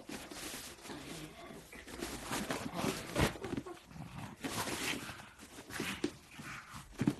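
Two pugs play-fighting, with dog growls and snorts in irregular bursts and scuffling on the rug.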